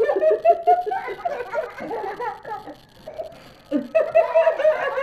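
Giggling laughter in rapid bursts, breaking off for a moment about three seconds in and then picking up again.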